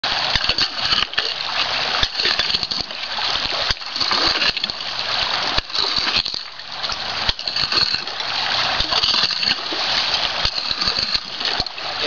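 A shovel scraping and digging wet gravel in a shallow creek bed, with stones clicking and clattering over and over against a steady splashing hiss of water.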